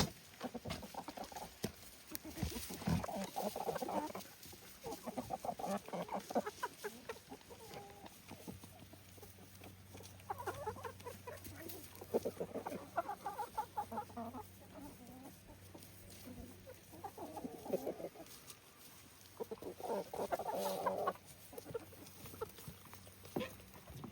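Chickens clucking in short bursts of rapid, repeated clucks, about six bursts with pauses between them.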